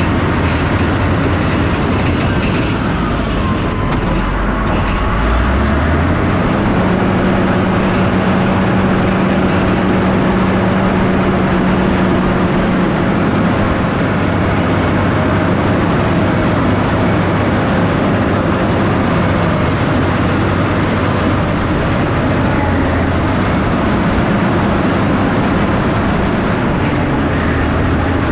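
Heavy earthmoving machine running under load while pushing topsoil, with a steady clatter throughout. The engine pitch rises about six seconds in and holds steady for several seconds.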